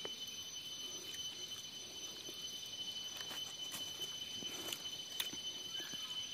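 Faint outdoor background with a steady high-pitched tone held throughout and a few scattered light clicks and ticks.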